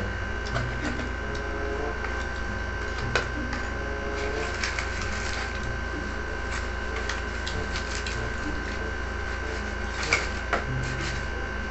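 Paper food wrappers and a cardboard takeout box being unwrapped and handled: irregular crinkling and light taps over a steady hum.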